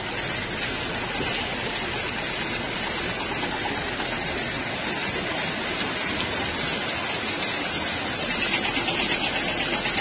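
Water dripping and trickling in many thin streams from a limestone overhang onto wet rock, an even, steady patter that grows a little louder near the end.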